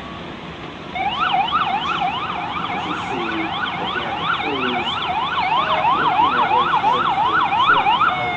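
Emergency vehicle siren on a fast yelp, its pitch sweeping rapidly up and down about three to four times a second. It starts about a second in and cuts off near the end.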